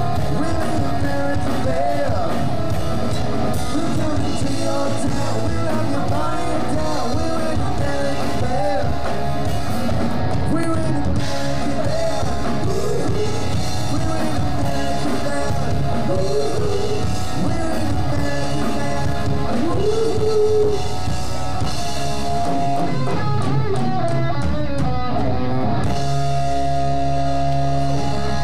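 Live rock band playing loud electric guitar, bass guitar and drum kit with a male lead vocal singing over them. Near the end the band holds one long sustained chord.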